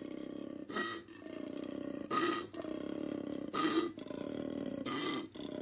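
Koala bellowing: a low, rough, rapidly pulsing drone on each in-breath, broken four times by a louder belch-like grunt about every second and a half.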